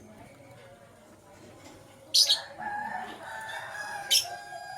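Lovebirds calling: two brief, shrill chirps, one about halfway through and one near the end. Between and under them runs a longer, lower drawn-out call for about two seconds.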